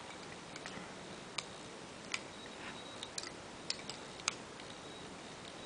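Plastic Lego bricks clicking and clacking as they are handled and pressed together, a series of sharp irregular clicks, over a steady faint hiss.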